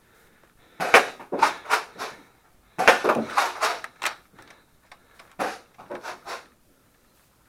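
Nerf Rival foam-ball blasters firing and the balls striking office surfaces: three clusters of rapid sharp clacks, spaced a couple of seconds apart.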